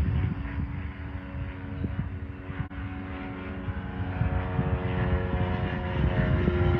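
Compact loader's diesel engine running steadily while working dirt, its note shifting slightly near the end.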